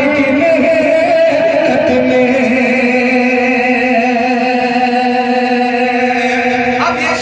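A man singing a naat (Urdu devotional poem) into a microphone through a public-address system. The voice wavers through ornamented notes at first, then holds one long steady note from about two seconds in until near the end.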